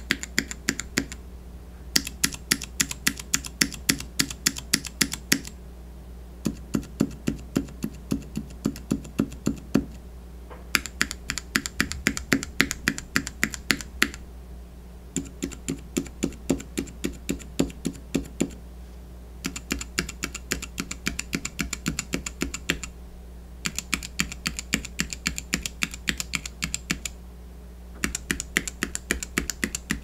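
Mechanical keyboard switches on a Gateron switch tester being pressed with moderately heavy taps, one switch at a time. The switches include the Gateron Clear, the Gateron Silent Black and the Zeal Tealios 67g. The taps come in runs of about four sharp clacks a second lasting three to four seconds, with a short pause between runs as the finger moves to the next switch.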